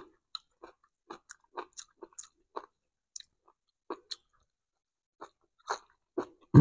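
A man chewing food close to a clip-on microphone: a run of short wet mouth smacks and clicks, about two or three a second, pausing for about a second past the middle.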